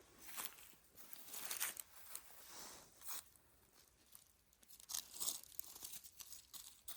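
Footsteps crunching and rustling through dry vegetation, in irregular short bursts.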